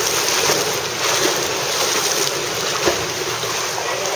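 Swimmers splashing through the water of an indoor swimming pool: a steady, noisy wash of water, with one brief louder splash about three seconds in.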